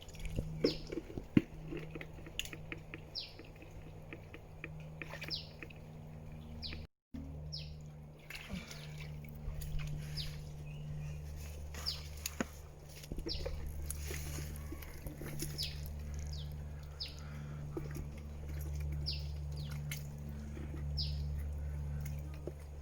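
A bird repeating a short, high, falling chirp every second or two over a steady low hum, with a few knocks near the start. The sound cuts out for a moment about seven seconds in.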